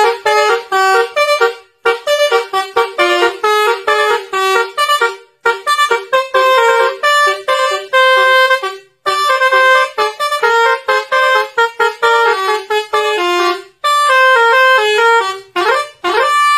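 Telolet bus horn melody: a fast tune of short pitched horn notes with brief gaps, ending in a few quick rising glides.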